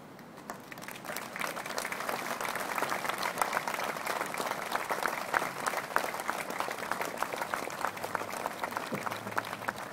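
Crowd applauding: dense clapping that starts about half a second in, builds over a second or so and then holds steady.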